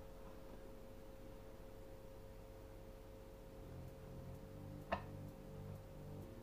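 Faint steady electrical hum, with quiet handling as a knife slices through soft sponge cake and one light click about five seconds in.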